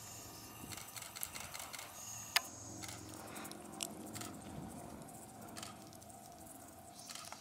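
Faint outdoor quiet with scattered small clicks and crackles, and one sharp click about two and a half seconds in.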